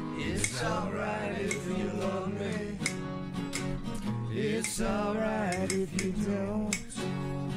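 Guitar being strummed in the room, with a voice singing along without words in two phrases, about half a second in and again past the middle.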